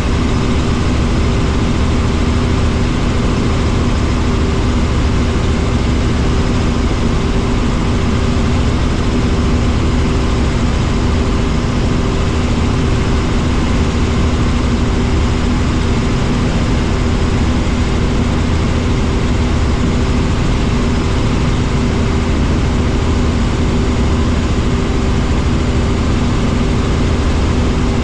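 Helicopter cabin noise in cruising flight: the engine and rotor make a loud, steady drone with a deep rumble and a constant hum, unchanging throughout.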